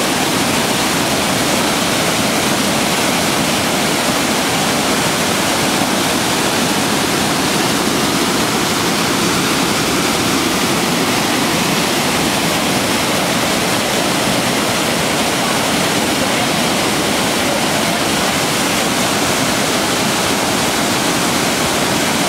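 Whitewater of the Niagara River rapids rushing over rock ledges: a loud, steady rush of churning water that does not change.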